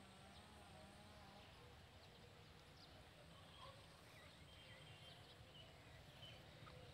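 Near silence: faint open-air field ambience, a low rumble with scattered short, faint chirps.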